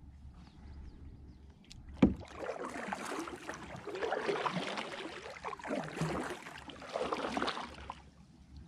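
Kayak paddle strokes: water splashing and dripping off the blade in several swells as the kayak is paddled. A sharp knock about two seconds in is the loudest sound.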